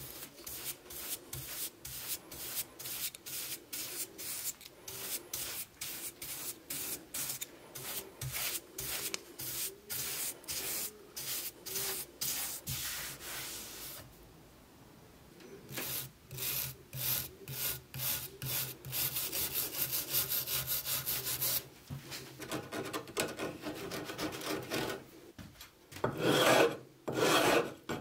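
A stiff bristle brush scrubbing back and forth across a worm-eaten wooden block, about two strokes a second, pausing briefly about halfway through. Near the end a metal file rasps across the wood's edge in louder strokes.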